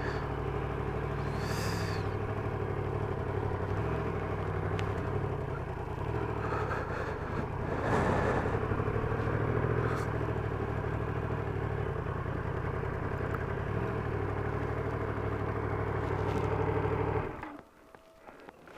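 Yamaha MT-10 motorcycle's crossplane inline-four engine running steadily at low revs, then switched off, cutting out suddenly near the end.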